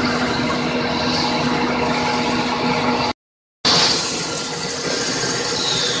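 Steady mechanical running noise with a constant hum of the 13-die rod breakdown (RBD) aluminium wire drawing machine in operation. The sound cuts out completely for about half a second a little past three seconds in. It then resumes as machine noise, with a high whine that slowly falls in pitch near the end.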